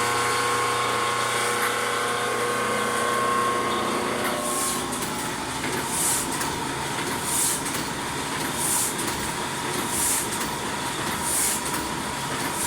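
Offset printing press starting up and running: a steady electric motor hum with several held tones, which about four and a half seconds in gives way to the press cycling with a regular airy swish about every second and a half.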